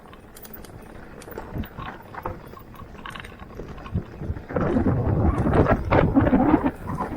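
Mountain bike rolling over a dirt trail: tyres crunching and the bike knocking and rattling over bumps, louder and rougher from about halfway through.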